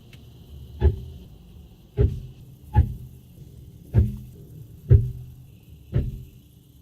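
Brakes of a BMW iX1 electric car squealing in short, loud pulses about once a second as the car rolls slowly. The squeal has been there since new and persists after hard braking, so it is not surface rust on the rotors; the dealer calls it normal for the model.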